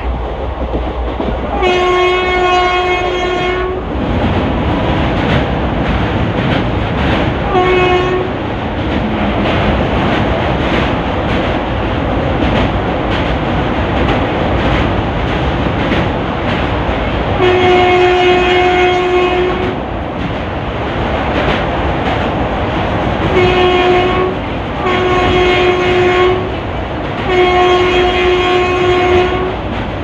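WAP4 electric locomotive's horn sounding six times in the pattern long, short, long, then short, long, long. Underneath runs the steady rumble and clickety-clack of the train's ICF coach wheels on the rails.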